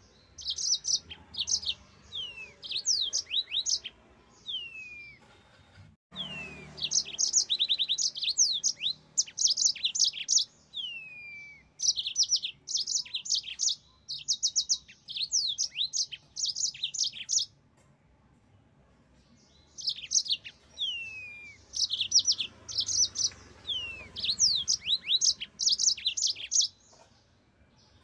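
Yellow-fronted canary singing: long bursts of fast, high twittering trills mixed with short downward-sliding whistles, with a pause of about two seconds past the middle.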